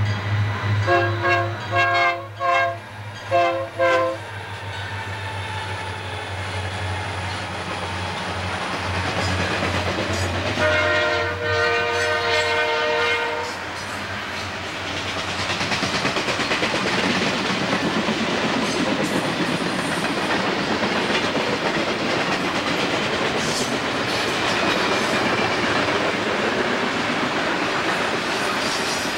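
Diesel freight locomotive sounding a series of short air-horn blasts over its engine drone, then a longer horn blast about ten seconds in. From about halfway on, freight cars roll by with a steady rumble and clickety-clack of wheels over rail joints.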